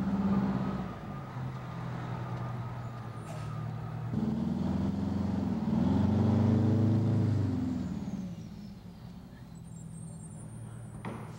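Fire truck's diesel engine running, revving up and easing back down about halfway through.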